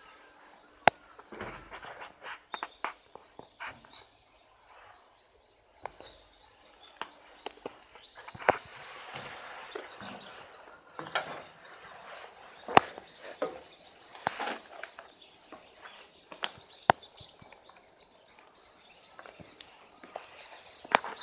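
Footsteps with irregular sharp knocks and scuffs, on checker-plate metal steps and gravel, with small birds chirping in the background.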